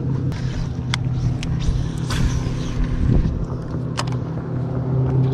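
A bass boat's motor running steadily with a low, even hum. A few sharp clicks sound over it.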